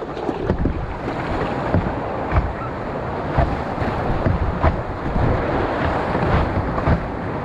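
Whitewater rushing and churning around an open canoe in a rapid, with repeated sharp splashes as the paddle strokes and waves hit the boat, and wind buffeting the microphone.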